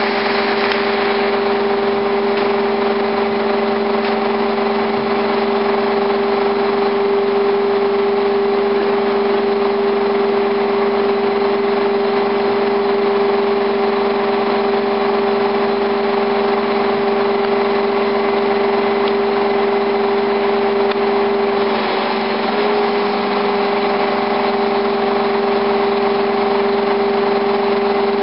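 Liebherr LTM1400-7.1 mobile crane's diesel engine running at a steady speed, with a strong steady hum over the engine noise. The pitch dips slightly for a moment about three quarters of the way through.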